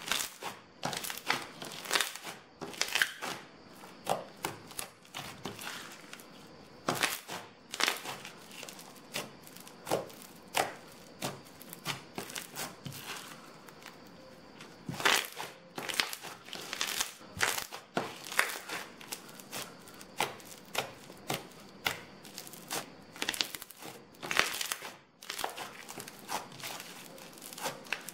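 Blue crunchy slime packed with tiny beads being kneaded, pressed and stretched by hand, giving an irregular run of sharp crackles and pops, several a second.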